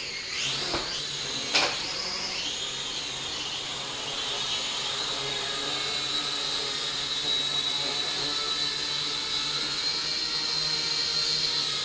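Small drone's electric motors and propellers whining. The pitch swoops up and down in the first couple of seconds, with one brief sharp knock about a second and a half in, then holds a steady high whine.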